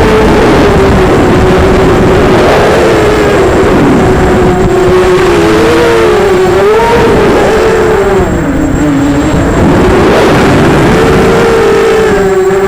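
Electric motors and 5-inch props of an Emax 250 racing quadcopter (Emax MT2204 motors, HQ 5045 bullnose props) whining steadily, the pitch rising and falling with throttle changes and dropping lower for a second or so about eight seconds in, over heavy wind rumble.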